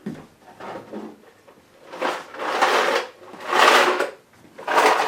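Plastic freezer parts being handled: a few light clicks, then three scraping, sliding sounds about a second apart.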